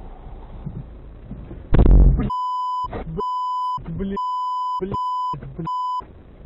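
Low car-interior road noise, then a loud thump just before two seconds in, followed by five short censor bleeps, a steady 1 kHz beep tone, with brief snatches of the driver's voice between them.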